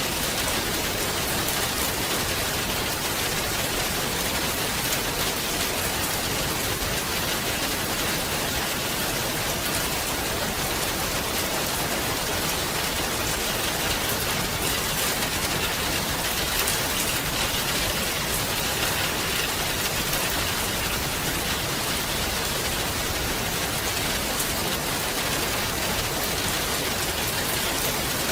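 Steady rain falling, an even hiss with fine drop patter, unchanging in level.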